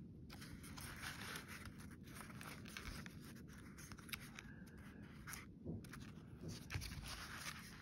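Faint rustling and brushing of thick collaged paper pages as they are handled and turned by hand, with a few small taps and clicks.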